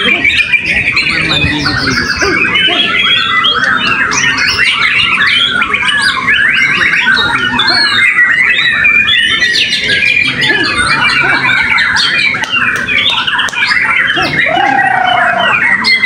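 Many caged white-rumped shamas singing at once: a dense, unbroken tangle of rapid whistles, trills and chirps, mostly high-pitched.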